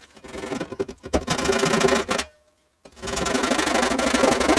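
Japanese pull saw cutting through a leg of the layout's support structure in fast, rasping strokes. It saws in two stretches, with a brief stop about two seconds in.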